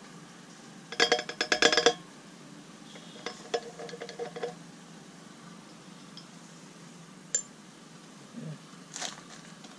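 A glass jar and a small metal tin clinking together: a quick run of ringing clinks about a second in, softer clinks a couple of seconds later, and a few light taps near the end.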